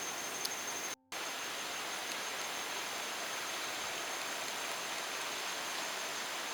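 Steady rush of flowing river water, an even hiss of current with a thin high whine underneath; the sound cuts out for a moment about a second in.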